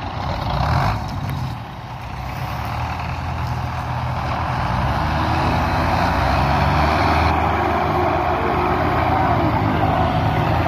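Several Belarus tractors' diesel engines labouring together at full load to pull a heavily loaded sugarcane trolley. The combined engine noise builds over the first few seconds, then stays loud and steady.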